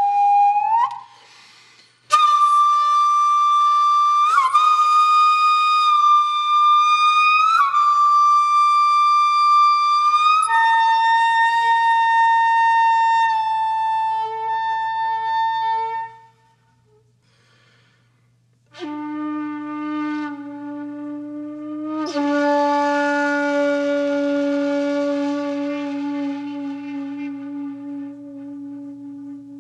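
Soundtrack music: a solo breathy flute holding slow, long notes and bending up into each one. It stops for about two seconds midway, then comes back on one long low note.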